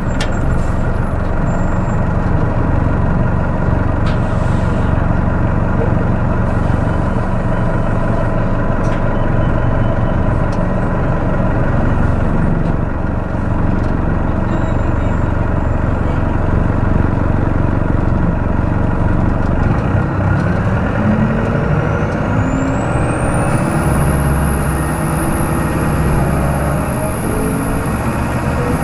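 Detroit Diesel Series 50 8.5-litre four-cylinder diesel engine of a 2002 New Flyer D40LF transit bus running while the bus is under way, recorded close to the engine. About three-quarters of the way in, a high whine rises and then holds steady.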